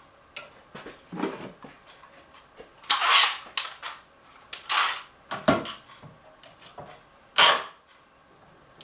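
Tools and clamps being handled at a woodworking bench: a series of short scrapes and clicks, the loudest about three seconds in, about five seconds in and near the end.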